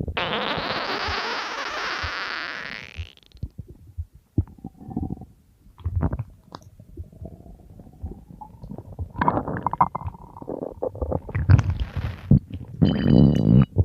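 Human stomach growling and gurgling: it opens with a hissing, airy gurgle lasting about three seconds, then goes on as irregular low rumbles, pops and squeaky gurgles, louder again near the end.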